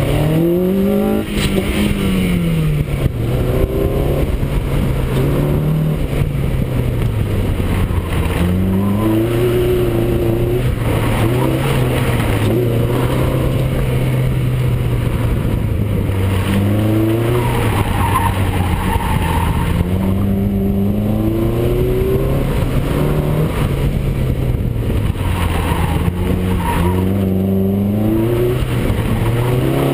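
2004 Honda Civic Si's 2.0-litre four-cylinder engine, fitted with a cold air intake and cat-back exhaust, driven hard through an autocross course: the engine note climbs and drops over and over as it accelerates and lifts between cones.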